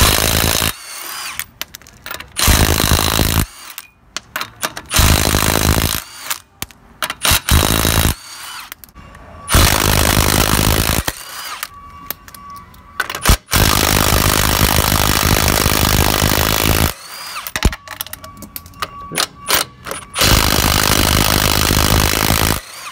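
Milwaukee M18 Fuel 3/8-inch compact cordless impact wrench hammering lug nuts off a truck wheel, in about ten bursts of rapid impacting, most a second or so long, some up to three seconds, with short pauses between.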